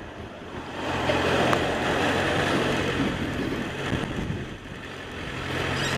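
Motorcycle engine running at low speed with wind noise on the helmet microphone, getting louder about a second in and easing off a little after the middle.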